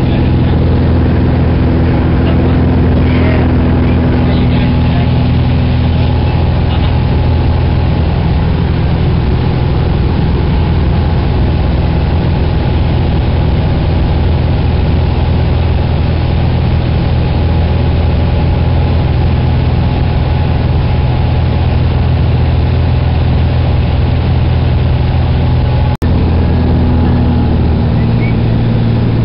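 Light aircraft's engine and propeller running steadily at cruise, heard inside the cabin as a loud, even drone. There is a split-second break in the sound near the end, and the engine's tone shifts slightly just before the end.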